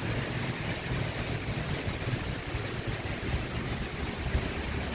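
Heavy rain pouring steadily, with gusting wind.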